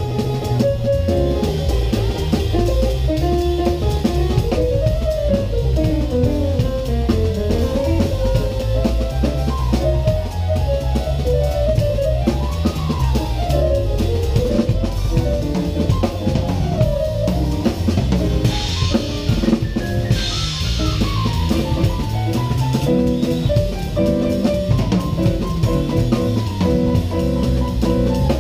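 Live band playing: a drum kit played with sticks, with cymbals, snare and kick, under an electric bass line and a lead melody of fast runs with sliding notes.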